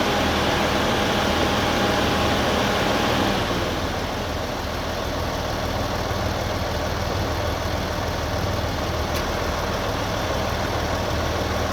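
Kia Mohave's radiator cooling fan running over the idling engine, a steady rushing noise; about three and a half seconds in the fan's rush and a steady whine drop to a lower, quieter level.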